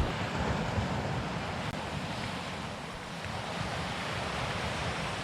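Waves washing onto the beach, with wind buffeting the microphone.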